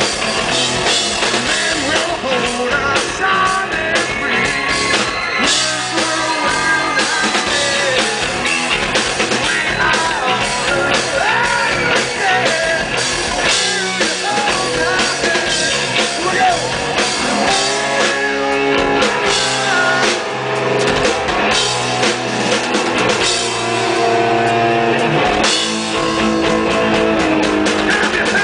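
Live hard rock band playing loud: electric guitars, bass guitar and drum kit, heard from within the crowd.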